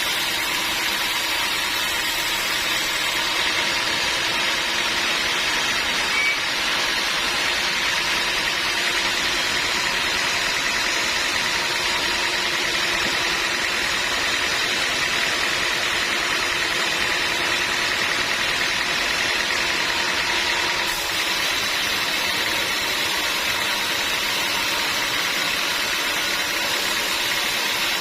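Sawmill machinery running steadily, a continuous mechanical drone with a faint whine. It shifts slightly about three-quarters of the way through.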